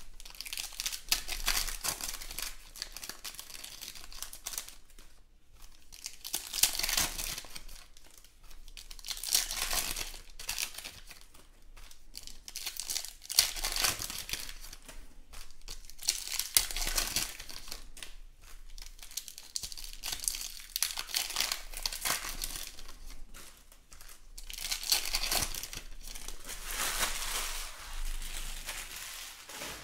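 Foil wrappers of Panini Mosaic basketball card packs crinkling and tearing as packs are ripped open, along with cards being handled, in repeated short bursts every couple of seconds.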